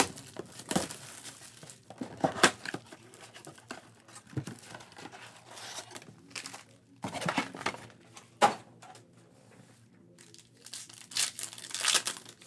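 Plastic wrapping on a Panini Prizm basketball blaster box and its card packs crinkling and tearing as the box is opened, in irregular bursts with short pauses. The loudest tearing comes about 2.5 seconds in, again around 7 to 8.5 seconds, and near the end.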